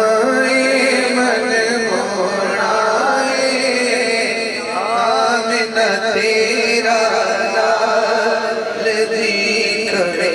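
A man's voice chanting a naat, a devotional poem in praise of the Prophet, in a long wavering melodic line over steady held tones.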